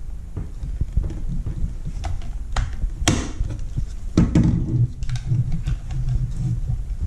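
Plastic parts of a Dosatron D9 dosing-pump motor being handled and fitted together by hand: low rubbing and handling noise with a few sharp plastic clicks and knocks, the loudest about three seconds in.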